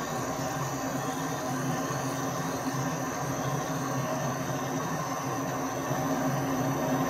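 Metal lathe running at reduced spindle speed while a boring-bar tool cuts an internal Acme thread in a nut: a steady drone of motor and gearing with a thin high whine. The speed was turned down to stop the tool bar deflecting, and the cut is going well.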